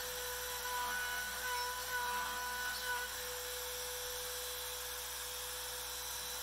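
Trim-router spindle on a CNC router running at a steady high-pitched whine while its bit cuts MDF. About three seconds in, the changing cutting noise over the whine drops away, leaving the motor's steady tone.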